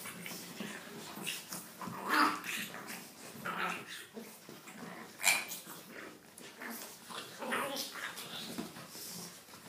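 Two dogs play-fighting, making short irregular vocal noises with scuffling between them, and one sharper, louder call about five seconds in.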